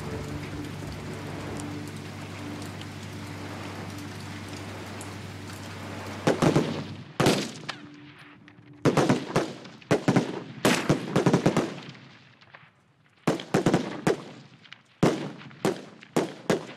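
A steady rain-like hiss under low held tones, then, about six seconds in, a string of rifle shots from several shooters at irregular spacing, sometimes two or three a second, each with a short echoing tail.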